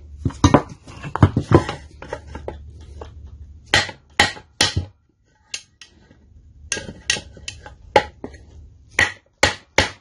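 Hammer blows on a wooden block held against the connecting rod of a Briggs and Stratton 5.50 engine, trying to drive the stuck piston out of the cylinder. About a dozen sharp knocks come in uneven groups, the piston not yet giving.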